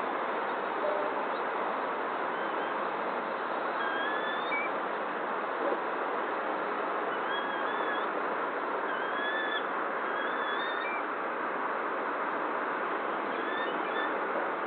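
A bird giving a series of short, slurred whistled calls, spaced a second or two apart, over a steady rushing background noise.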